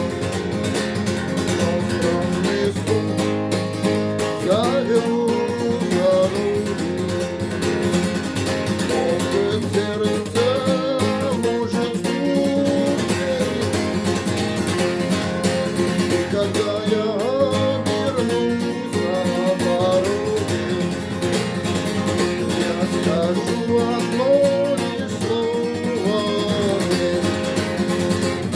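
Music: an acoustic guitar playing steadily, with a melody line that slides in pitch over the chords.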